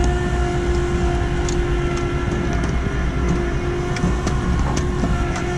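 Flatbed tow truck's engine and winch running steadily as they pull a car up the tilted bed: a steady whine over a low engine rumble, with a few light clicks.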